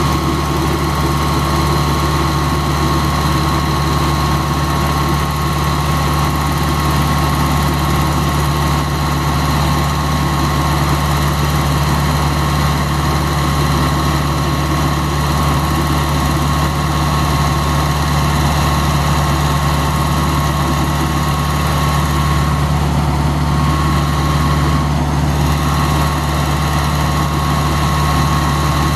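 Vermeer 630 stump grinder's air-cooled engine running steadily, with a thin steady whine over it.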